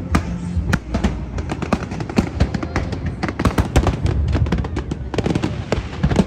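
Aerial fireworks bursting in rapid, irregular succession, a dense run of sharp bangs and crackles, with the show's music playing underneath.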